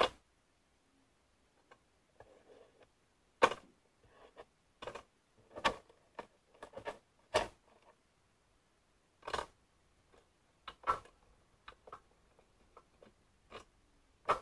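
Cardboard jigsaw puzzle pieces being gathered up and dropped into a small metal tin: irregular sharp clicks and taps, a dozen or so spaced out, with quiet rustling of pieces between.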